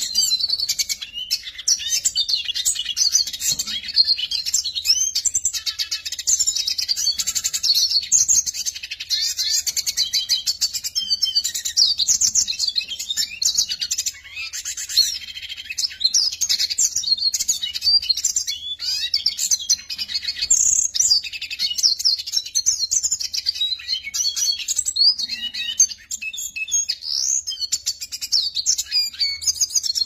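Siskin singing a long, continuous high-pitched song of rapid twittering chirps and trills, with only brief breaks.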